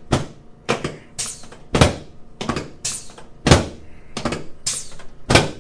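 A quick, even run of about ten sharp thuds with cracks, roughly two a second: manual chiropractic thrusts on the shoulder, collarbone and rib-to-breastbone joints, the joints popping under the pressure.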